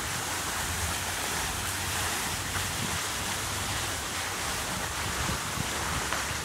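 Steady outdoor background hiss with irregular low buffeting, as of wind on the microphone.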